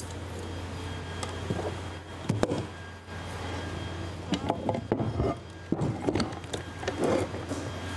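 Scattered metal knocks and clinks as a John Deere ProGator manual transmission is taken apart by hand, most of them in the second half, over a steady low hum.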